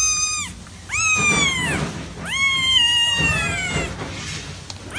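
Young kitten mewing: a string of high meows, each falling in pitch at its end. One call ends about half a second in, a short one follows, and then a longer one.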